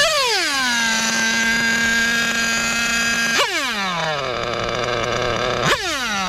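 A Novarossi Mito .21 nitro engine in a 1/8 GT RC car is blipped three times, about 3.4 s and 5.7 s apart. After each blip the revs fall back. The first time they hang at a steady high idle; the second time they drop further to a low idle, coming down in two stages. The engine is still untuned: idle and especially the low-speed needle remain to be opened up.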